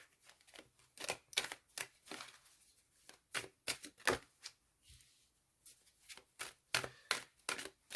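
Tarot cards being handled and laid down on a table: an irregular run of short snaps and taps as cards are flicked out and set into place.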